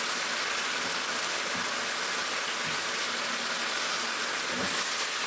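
Beef pieces in masala sizzling in a nonstick frying pan as the last of the cooking liquid dries off: a steady hiss. A wooden spatula turns the pieces now and then.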